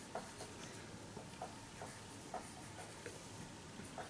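Soft, irregular small clicks and taps, about eight of them, from fingers and fingernails handling tiny dough dango balls on a wooden toothpick, over a low steady hum.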